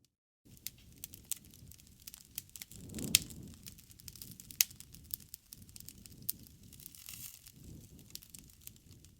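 Wood campfire crackling: scattered sharp pops and snaps over a soft low rumble of flame, the loudest pop about three seconds in. The sound cuts out completely for a moment at the very start.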